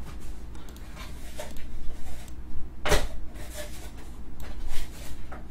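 Light handling noises from Pokémon trading cards being sorted: faint rustles and soft taps, with one sharper click about three seconds in, over a steady low hum.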